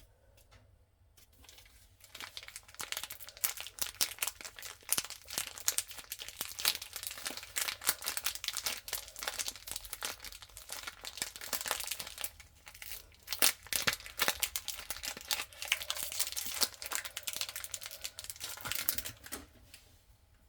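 Packaging of a bar of soap being torn open and crinkled by hand: dense crackling and tearing that starts about two seconds in and goes on until just before the end.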